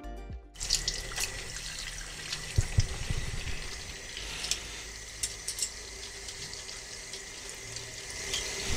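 Water running from a tap into a sink while plastic keycaps are washed by hand, with scattered small splashes and clicks. Music cuts off about half a second in.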